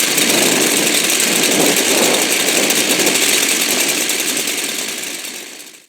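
Two-stroke chainsaw engine running steadily just after a pull start. The sound fades away near the end.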